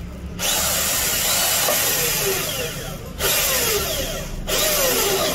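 Electric drill with a hole saw cutting a 25 mm hole through a headlight dust cap. It runs in three stretches, with brief breaks about three and about four and a half seconds in, and gives short falling squeals as the saw cuts.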